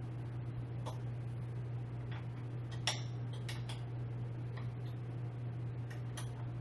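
Scattered light clicks and small metallic taps of chair parts, screws and a screwdriver being handled during assembly, irregularly spaced, the loudest about three seconds in, over a steady low hum.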